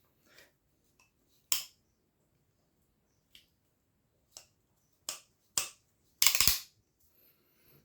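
Ratchet (carraca) of a navaja folding knife clicking as the blade is worked: single sharp clicks at uneven intervals, then a louder short clatter about six seconds in.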